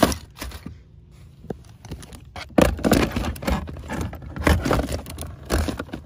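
Handling noise from a coiled plastic air hose with metal fittings being moved about and set in place: irregular scraping and light clinking knocks, with a sharp click at the start.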